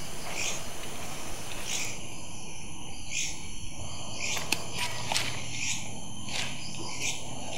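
Night-time insect ambience: crickets and other insects chirping steadily, with a couple of faint clicks about halfway through.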